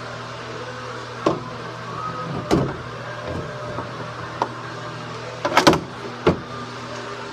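Several sharp metal knocks and rattles as the latch of a corrugated metal shed door is worked by hand, the loudest a quick cluster a little past halfway, over a steady low hum.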